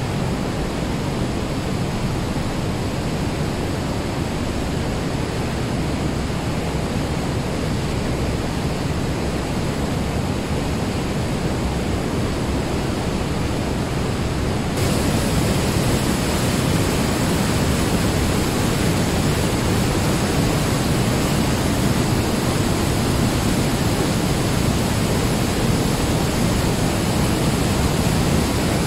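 The Weissbach mountain stream rushing and cascading through a narrow limestone gorge: a steady, dense water noise that turns louder and brighter about halfway through.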